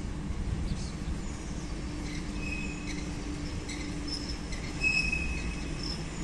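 An approaching train rumbling steadily in the distance, with a few short high squeals, the loudest about five seconds in.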